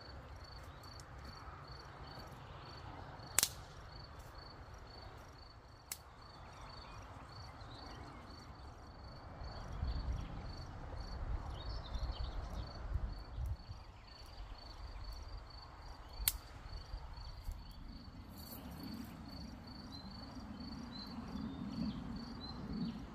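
Insect chirping steadily, short high-pitched chirps about three a second. Two sharp knocks stand out, one a few seconds in and one past the middle, and a low rumble comes and goes in the second half.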